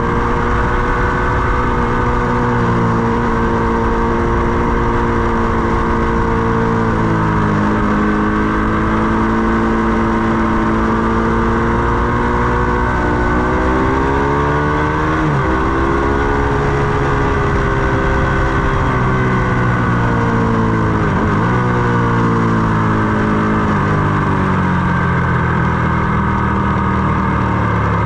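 Ducati Panigale 899's Superquadro L-twin engine running hard at track speed, its pitch rising and falling with the throttle. There are two sharp, brief dips in pitch, about halfway and about three quarters through.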